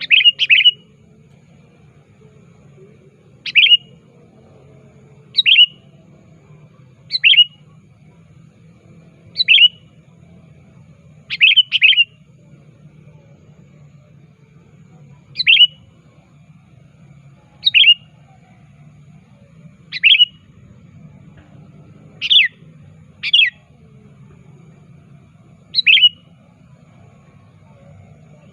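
Male sooty-headed bulbul (kutilang) calling actively, as to a rival: short, bright chirped calls about every two seconds, a few given in quick pairs, over a faint low hum.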